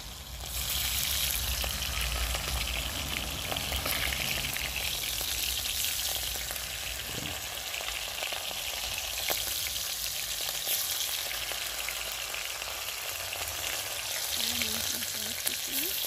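Hot oil sizzling in a small pot as pieces of bird meat fry. The sizzle jumps up about half a second in as a piece goes into the oil, then holds steady.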